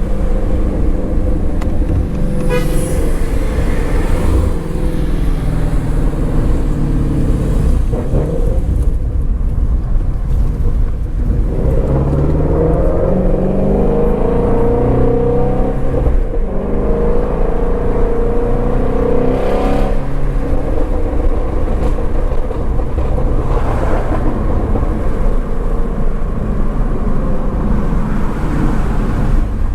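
Shelby GT350R's 5.2-litre flat-plane-crank V8 running while driving. Its note climbs in pitch under acceleration about twelve seconds in, and drops back near twenty seconds.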